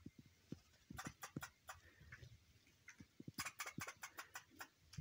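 Squirrel calling with faint, sharp chucking clicks in irregular clusters, a few about a second in and a quicker run from about three and a half to four and a half seconds in.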